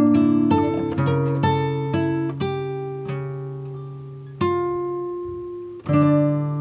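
Background music: acoustic guitar plucking notes that ring out and fade, with fresh strums about four and a half and six seconds in.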